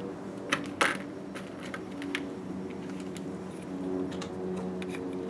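Light clicks and taps of small tools and connector parts being handled at a soldering bench, with two sharper clicks about a second in, over a steady hum.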